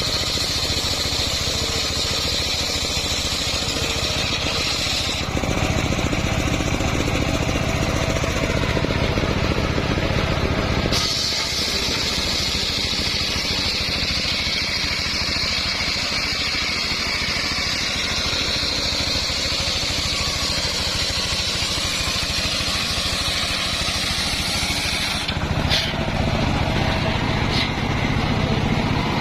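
Homemade engine-driven circular saw running continuously while cutting wood, a steady engine drone under a high blade whine. The sound shifts about five seconds in, again around eleven seconds, and near the end as the load on the saw changes.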